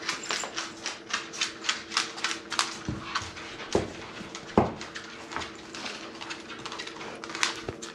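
A Labrador's claws clicking and tapping quickly on a hard floor as the dog moves about, with a few heavier knocks among them and a faint steady hum underneath.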